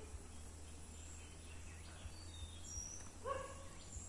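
Faint outdoor ambience with a low steady rumble, a few high bird chirps around the middle, and one short louder call about three seconds in.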